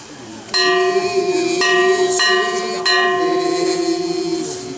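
A small metal bell struck four times in slow, uneven succession, each stroke ringing on with several clear, steady overtones that fade slowly, as used to accompany a Japanese nenbutsu dance.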